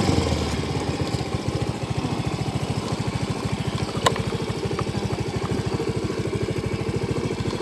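Motorcycle engine idling with a fast, even putter, settling down from higher revs at the start. A single sharp click about four seconds in.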